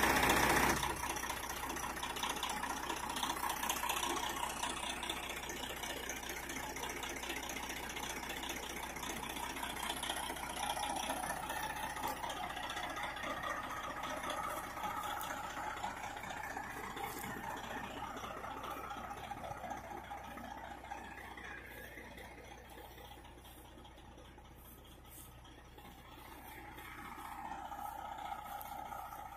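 Engine of a large bus-conversion motorhome running as it drives slowly past, towing a pickup truck. It fades gradually as the coach moves away and grows louder again near the end.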